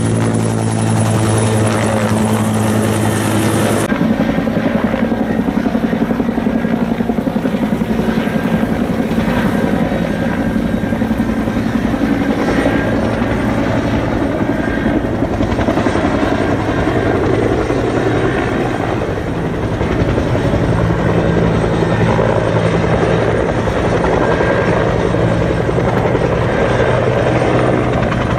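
Firefighting helicopter flying with a bucket on a longline: loud, continuous rotor chop and engine noise. Close overhead at first with a steady low hum, the sound changes about four seconds in to a rougher, even rotor noise that runs on steadily.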